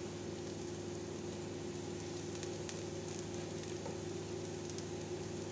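Sliced onions and minced garlic frying in oil in a non-stick pot: a steady sizzle with faint scattered crackles, over a steady low hum.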